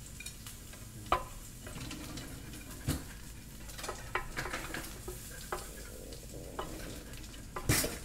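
Pork belly sizzling on a flat grill plate, with a few sharp clicks of wooden chopsticks against the grill and a ceramic plate; the loudest clack comes near the end.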